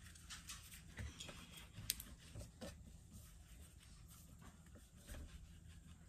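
Near silence: faint soft rubbing and light taps of hands rolling foam clay into a worm against a tabletop, with a low steady room hum and one sharp click about two seconds in.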